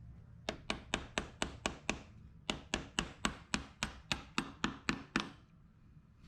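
Quick, even hammer taps, about four a second with a short break partway, driving the KTM's primary gear home onto the crankshaft.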